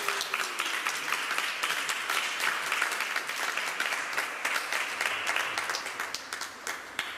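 A small audience applauding, a dense patter of hand claps that slowly tapers off toward the end.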